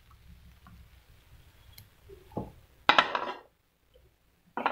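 A few knocks and clatters of a utensil against a grill pan: a soft knock, then a louder clatter that rings briefly about three seconds in, and another short clatter near the end.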